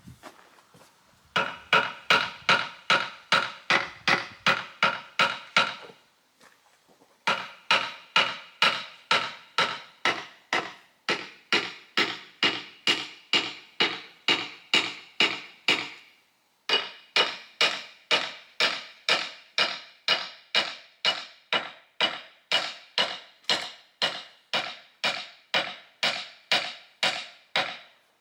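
Light hammer taps on a rusted carriage bolt, driving it out of the old sawmill carriage timber. The strikes are evenly paced at about two to three a second, each ringing like metal, in three runs with short pauses about 6 and 16 seconds in.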